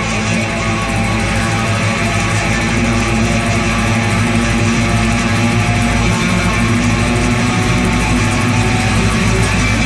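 Instrumental passage of a rock song led by guitars, with bass underneath and no vocals.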